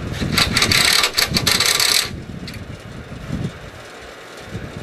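Cordless drill-driver running in one loud burst of just under two seconds, tightening the bolt of the clamp that holds two solar panels to the rail, then cutting off sharply.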